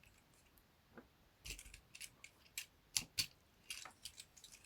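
Plastic parts of a Transformers action figure clicking and tapping as it is handled and its joints are moved: a string of irregular, faint clicks, several bunched close together.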